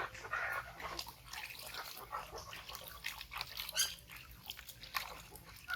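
Baby monkey making short squeaks and mouth noises, amid a busy run of small clicks and rustles.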